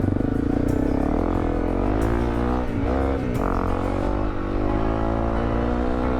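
Honda CRF250L's single-cylinder four-stroke engine running under way, its pitch dipping and rising as the revs change about halfway through, over a steady low rumble.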